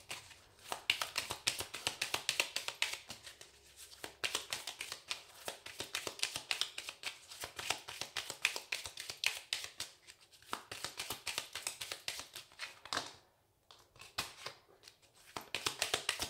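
A deck of oracle cards being shuffled by hand, the cards slapping and flicking against each other in a fast run of light ticks, with a brief pause about three-quarters of the way through.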